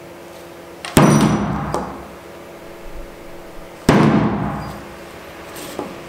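Two heavy axe chops through a car wiring harness into the surface beneath, about three seconds apart. Each is a sharp thud that rings away over about a second, with a few light knocks in between and after.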